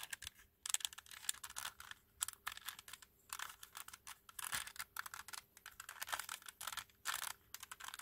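Resin-cast, knight-shaped 2x2 twisty puzzle being turned by hand: its pieces click and clack in quick, irregular taps as the layers are twisted.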